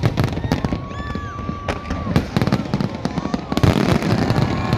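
Fireworks going off in rapid succession: a dense stream of sharp bangs and crackles, thickening into a louder, almost continuous crackle about three and a half seconds in.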